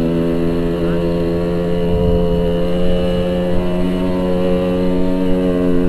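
Yamaha RX-King 135cc two-stroke single-cylinder motorcycle engine running at a steady, even speed.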